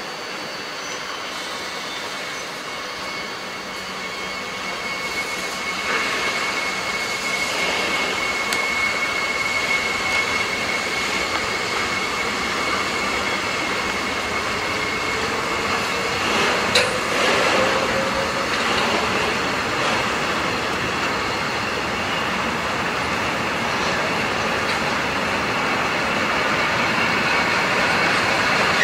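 Container freight train rolling past, a steady rumble of wheels on rail that slowly grows louder. A thin, high wheel squeal rings for several seconds early on, and there is one sharp clank about 17 seconds in.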